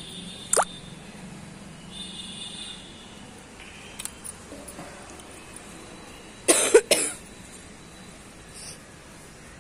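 A person coughs, a loud double cough about two-thirds of the way in, with a few light clicks before it.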